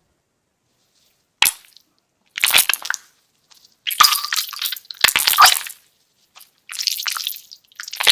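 Wet squishing and crackling in about six short, separate bursts, like a soft, sticky material being squeezed and handled, after a second and a half of silence.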